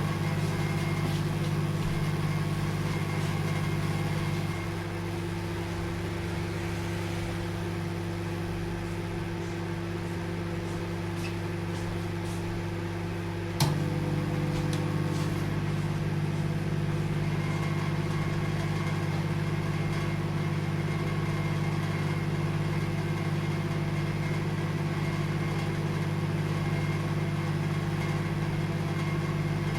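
Microwave oven running with a steady low hum. About four seconds in the hum thins and drops slightly, and a sharp click just under halfway through brings it back fuller.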